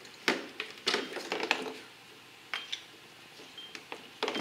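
Pliers clicking and clinking against the engine while twisting a spark plug wire boot loose and pulling it off: a handful of scattered sharp clicks, a few with a brief metallic ring.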